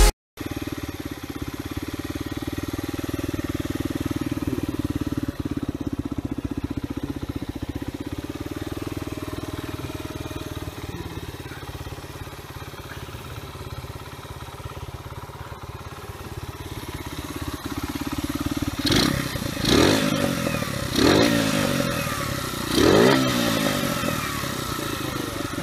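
Sinnis Apache 125's 125cc single-cylinder four-stroke engine idling steadily through a Lextek aftermarket silencer with its baffle removed, then revved in a few quick throttle blips near the end, each rising and falling back to idle.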